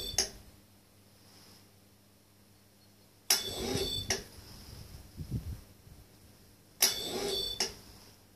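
Sawmill saw head being stepped one inch at a time under its Slidetec setworks: short mechanical runs of drive whir with a thin high whine, each under a second long and starting and stopping with a click, about every three and a half seconds. A low steady hum runs underneath.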